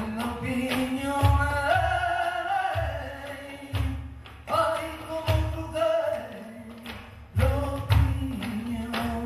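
Live flamenco music in soleá por bulería: a sung cante line over flamenco guitar, punctuated by sharp percussive strikes in the rhythm.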